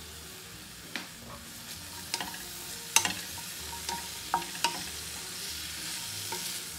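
Green beans frying with onion, garlic and chilli in a stainless steel pan, a steady sizzle, while a wooden spatula stirs them and knocks against the pan a few times, the sharpest knock about three seconds in.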